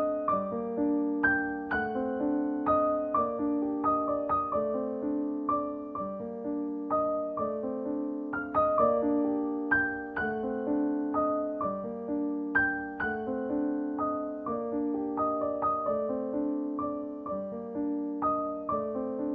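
Background piano music: a gentle melody of struck notes that fade, over repeating chords, at an even pace.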